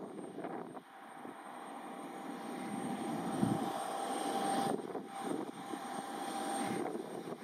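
E721-500 series electric train approaching as it arrives at the station. Its running noise grows louder over the first few seconds, and a steady whine sounds through the second half.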